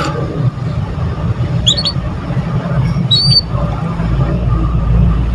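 A steady low rumble fills the recording, with two short high chirps from a small bird, one a little under two seconds in and one about three seconds in.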